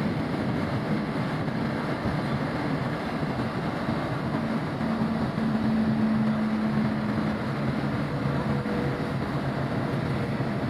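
Steady machinery noise with a low hum that grows stronger for a few seconds around the middle.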